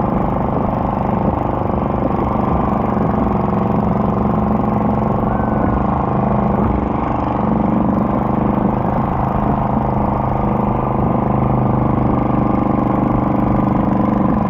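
Stock garden tractor engine running steadily under load as it pulls a weight sled down a dirt track, a constant drone that holds its pitch without revving up or down.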